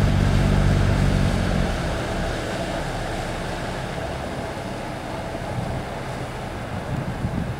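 A boat's motor running with a low hum, fading away about two seconds in, leaving steady wind and water noise.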